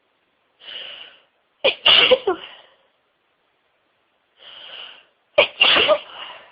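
A woman sneezing twice during a sneezing fit. Each sneeze starts with a breathy in-breath, then a sharp, loud burst. The first comes about two seconds in and the second near the end.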